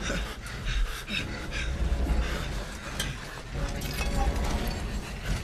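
Film sound effects of armoured figures moving over stony ground: scattered crunching steps and clinks of metal, over a steady low rumble.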